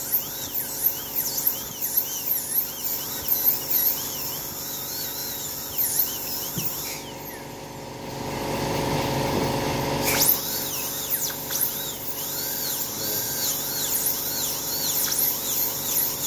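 High-speed dental drill whining as its bur cuts into a tooth to open the pulp chamber for a root canal, its pitch dipping and recovering again and again as the bur bites. The whine stops for about three seconds just past the middle, when a duller hiss is heard, then starts again.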